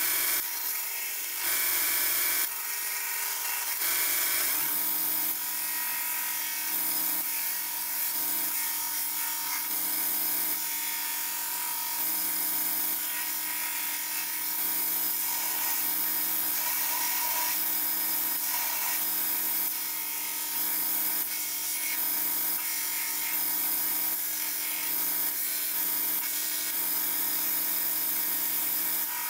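Belt grinder running, with steel knife blank ground against the abrasive belt in repeated passes to clean off the forge scale. The motor hum is steady under a grinding hiss that dips slightly between passes, and a second steady tone joins about five seconds in.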